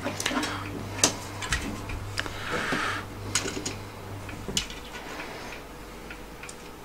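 Scattered light clicks and knocks from hands handling and positioning a wand-shaped LED work lamp on a flexible neck, with a short scraping rustle about two and a half seconds in. A low hum under it stops about four and a half seconds in.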